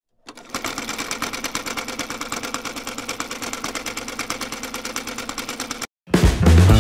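Sewing machine running steadily, a rapid even rattle of stitches that stops suddenly near the end. Music with drums starts just after.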